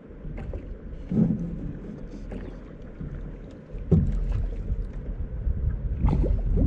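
Water moving against a Clackacraft drift boat's hull, with a few knocks and a low rumble that grows louder about four seconds in.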